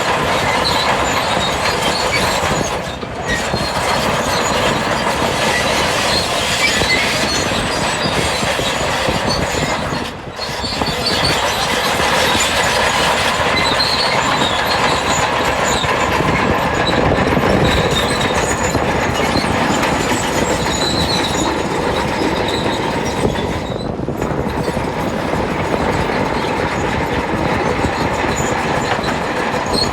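Bulldozer's steel crawler tracks clanking and squealing over the diesel engine as the machine works, with brief drops in level twice in the first third.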